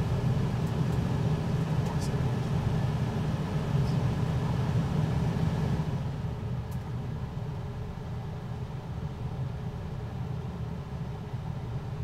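Coleman Mach 10 rooftop RV air conditioner's blower running with a steady whoosh and a low hum. About six seconds in it drops to a quieter setting, the hissy top of the sound falling away.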